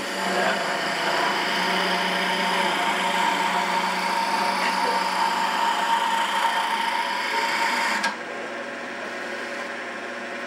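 Hand-held turning tool cutting a thin spindle turning on a wood lathe: a steady rough scraping over the lathe's steady whine. The cut stops abruptly about eight seconds in, leaving only the lathe running.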